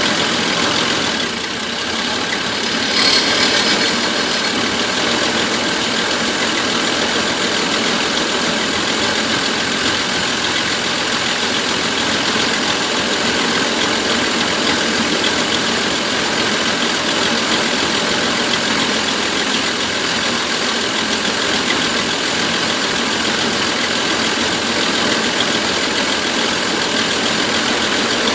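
Van engine idling with a misfire, running steadily, with a brief surge a little after three seconds in.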